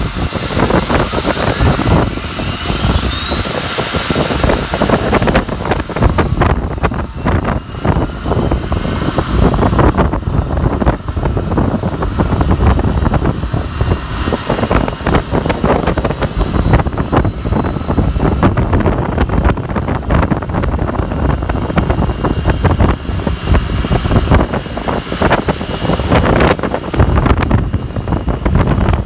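Rolls-Royce Trent 700 turbofan on an Airbus A330 spooling up during an engine start: a thin whine climbs steadily in pitch over the first ten seconds or so, then holds high. Heavy wind buffeting on the microphone runs underneath.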